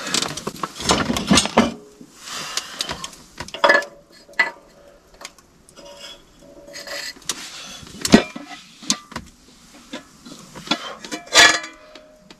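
Metal cookware being handled on and around a wood stove: irregular clanks and clinks of a pot and a skillet being moved and set down, some knocks ringing briefly, the loudest about four seconds in and near the end, with some rustling between.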